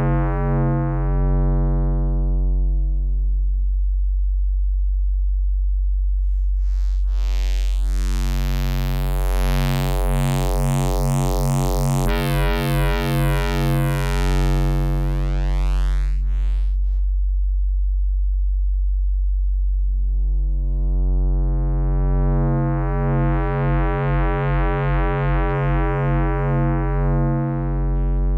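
A u-he Zebra 2 software synthesizer holds one low, steady note while its oscillator waveform is reshaped. The timbre shifts from a plain, almost sine-like hum to a bright, buzzing tone full of overtones and back again, twice over. The loudness stays even.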